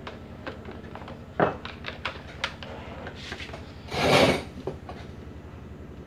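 Scattered light clicks and knocks from handling a fan's sheet-metal switch panel and its wires, with a louder knock about a second and a half in and a short rustle about four seconds in.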